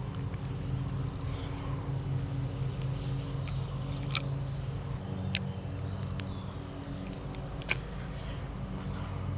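A steady low motor hum, with three sharp clicks spread across the middle and a brief high chirp between the last two.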